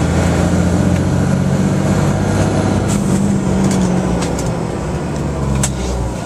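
The steady low hum of a vehicle engine with road noise, heard from inside the cab of a fire truck driving to a call. There are a couple of sharp clicks near the end.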